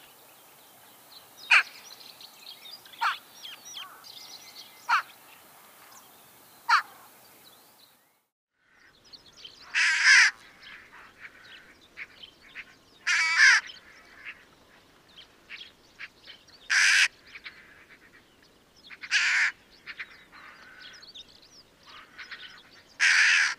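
Daurian jackdaws calling: first a few short, sharp calls about a second and a half apart, then after a brief gap louder, harsher calls about every three seconds with fainter chattering notes in between.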